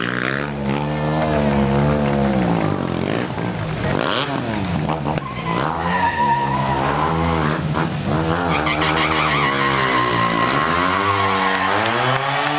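Stunt motorcycle's engine revving up and down again and again, with a tyre squeal about halfway through and another from about two-thirds in.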